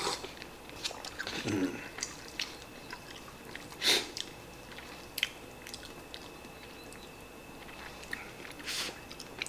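A person eating instant cup ramen: quiet chewing, with scattered sharp clicks and knocks of chopsticks against the cup, the loudest about four seconds in.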